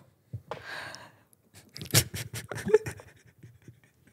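Soft breathy laughter in short puffs of breath, with small clicks and bumps from handheld microphones being moved.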